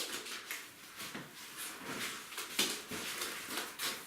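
Foam and cardboard packing being handled: a run of irregular scraping and rubbing sounds.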